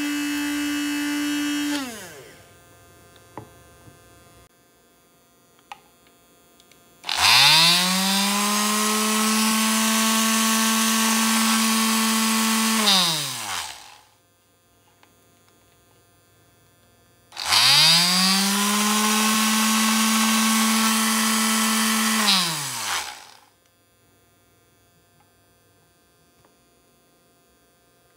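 A small electric blade coffee grinder's motor runs, then winds down about two seconds in. Then an electric detail sander is switched on twice, powered from a homemade 12 V-to-AC inverter. Each time it spins up quickly, runs steadily for about six seconds and winds down.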